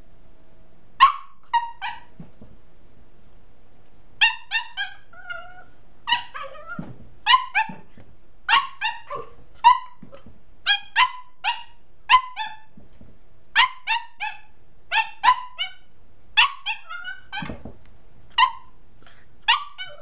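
Jack Russell terrier puppy barking at its own reflection in a mirror: about two dozen short, sharp, high-pitched barks, often in quick runs of two or three, starting about a second in and repeating with short pauses.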